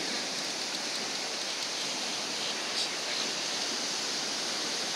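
Steady, even wash of ocean surf breaking on the beach.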